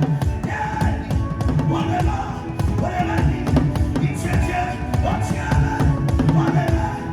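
Music led by fast, dense drumming, with held pitched instrument notes over the beat.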